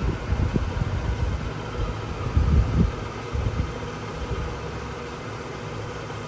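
Harrison M350 engine lathe running with its spindle turning and the half nut engaged on the lead screw, feeding the carriage for threading: a steady mechanical hum with a faint whine. Irregular low thumps in the first three seconds settle down after about three seconds.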